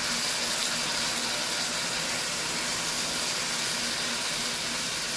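Sautéing vegetables sizzling as seasoned fish broth is poured into the hot pot, giving a steady hiss of steam.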